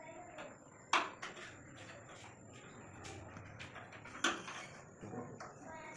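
Two sharp metallic clicks about three seconds apart, with a few fainter ticks and clinks between them.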